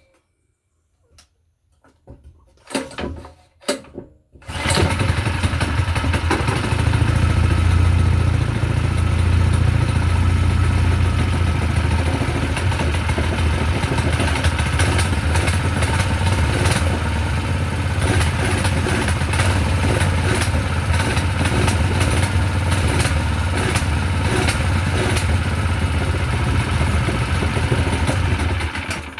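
Predator 212 single-cylinder small engine being pull-started: a few short sounds, then it catches about four seconds in and runs steadily before cutting off near the end. It runs with no gasoline in the tank or carburetor, which the owner thinks may mean it is burning oil.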